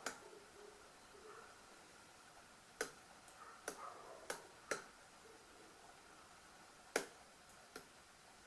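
Short, sharp clicks or taps, about seven of them at irregular intervals, the loudest a little before the end, over a faint steady room background.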